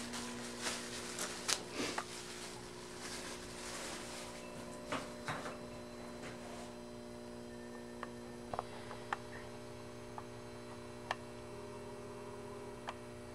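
Steady low electrical hum, with scattered light clicks and knocks throughout.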